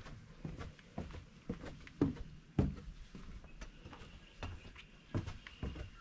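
Footsteps on the wooden boards of an observation deck: uneven knocks and dull thuds as someone walks across the planks.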